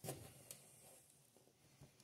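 Mostly near silence, with a brief faint scrape right at the start and one light click about half a second in, from a hand crimping tool being handled on a bundle of wires.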